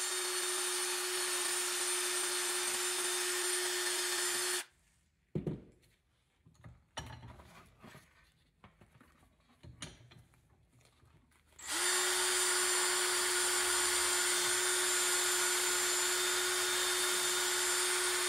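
Cordless drill spinning a hard-bristled wire wheel against a copper ingot clamped in a vise: a steady whir with a hiss of bristles scrubbing the metal. It runs for about four and a half seconds, stops for about seven seconds while the bar is repositioned, with a few light knocks, then runs again through the end.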